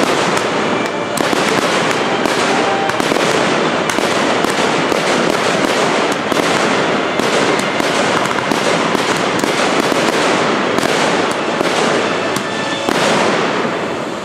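Aerial fireworks bursting in a dense, continuous barrage, bang after bang.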